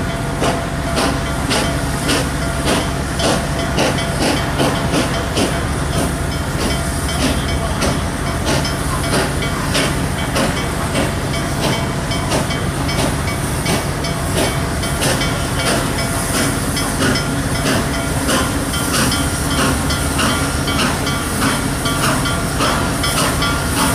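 Nickel Plate Road 765, a 2-8-4 Berkshire steam locomotive, approaching slowly under steam. Steam hisses steadily under regular sharp knocks about twice a second.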